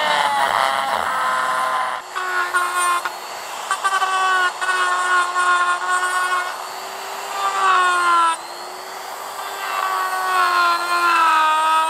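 Die grinder whining at high speed as a carbide burr cuts into an aluminium casting, with a crackle of cutting over the tone. Its pitch dips and wavers as the burr bites and eases off.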